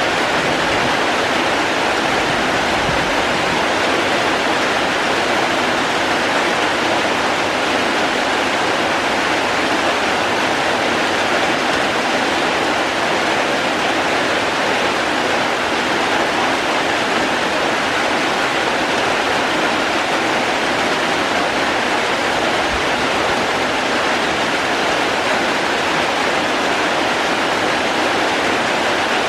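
Steady, even hiss of heavy falling water, with no breaks and no single drops or splashes standing out.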